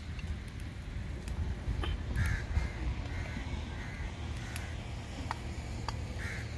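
A crow cawing, about six caws spread over a few seconds, the loudest about two seconds in and one near the end, over a low steady rumble with a few sharp clicks.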